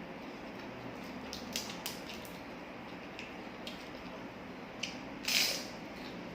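Someone eating, with scattered light clicks of cutlery and dishes and one louder, half-second crunching rasp about five seconds in.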